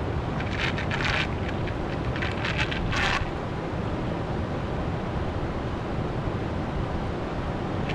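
Steady rushing of river water, with wind buffeting the microphone. From about half a second to three seconds in, there is a short run of crisp crackling clicks.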